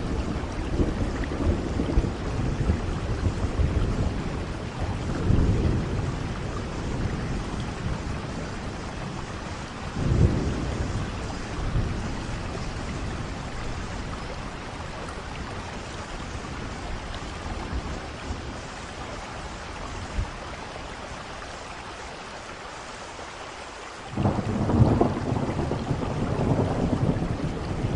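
Steady low rumbling and rushing noise that swells and fades. It eases off for a few seconds, then jumps back up suddenly about four seconds before the end.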